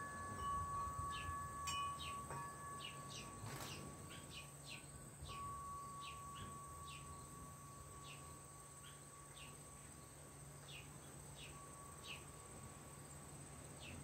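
Metal tube wind chimes ringing softly, their long tones fading and sounding again, over a string of short, high chirps, about one or two a second.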